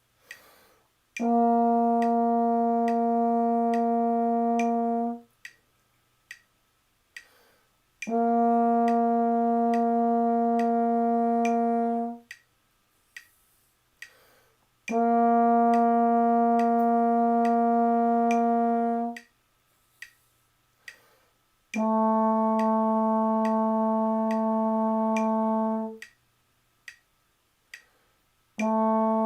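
Trombone playing long, plain, even whole notes on B flat, each held about four seconds, with the last two a half step lower on A natural. Between notes a metronome ticks steadily at about 70 beats a minute.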